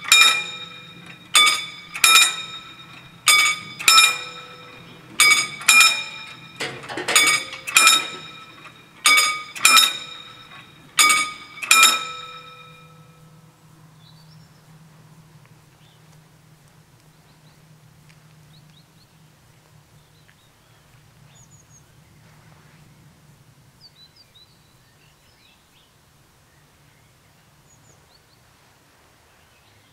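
Two electric level-crossing bells striking in turn, about one ringing stroke a second, while the barriers lower. They stop about twelve seconds in, after which only faint chirps are heard.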